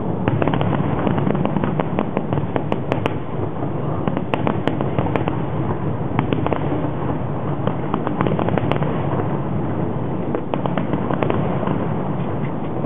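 Aerial fireworks display: a dense, unbroken barrage of overlapping shell bursts, bangs and rapid crackling pops, with no pause between volleys.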